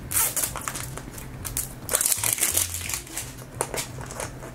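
Plastic tear strip being pulled around a Zuru 5 Surprise Mini Brands capsule ball, the thin plastic crinkling and crackling in irregular scratches as the wrapping comes away.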